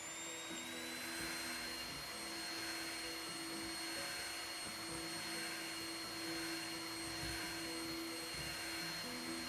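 Electric hand mixer running, its beaters whirling through chocolate ice cream powder and milk with a steady high motor whine. The motor finishes speeding up within the first half second, then holds an even speed.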